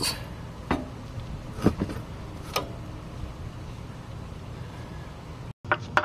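A combination wrench clinks against a rear hub mounting bolt four times, under a second apart, as the bolt is turned out, over a steady low hum. The sound cuts out for a moment near the end.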